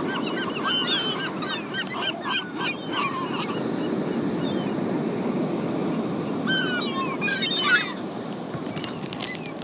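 Seagulls calling, many short squawks overlapping for the first three seconds or so and another round of calls about seven seconds in, over a steady rushing noise.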